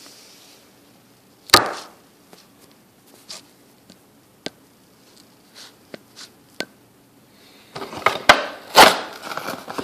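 Packaging of a trimmer box being handled and pried at by hand while trying to get it open: a loud scrape about one and a half seconds in, scattered light clicks and taps, then a burst of scratching and rustling near the end.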